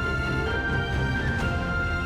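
Background music: a soundtrack of sustained held notes over a steady low accompaniment.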